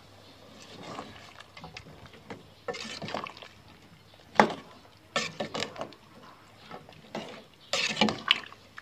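Metal ladle stirring a pot of chicken and wax gourd curry: the liquid sloshes in irregular bursts, with a sharp knock of the ladle against the metal pot about four and a half seconds in.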